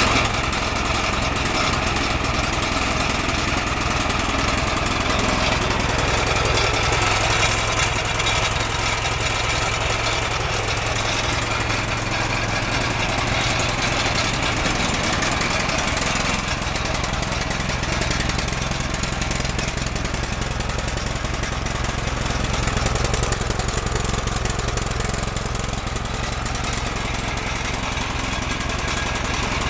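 Clipper concrete saw's petrol engine running steadily at a constant speed, with a slight change in its note about halfway through.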